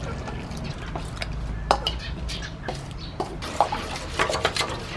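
Utensils clinking and scraping against a pot or bowl during stirring or mixing, with irregular sharp knocks, the loudest a little under two seconds in.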